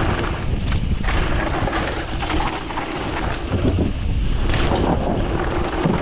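Mountain bike riding fast down a dirt jump trail: wind rushing over the action camera's microphone, with tyres on dirt and frequent short knocks as the bike rattles over bumps.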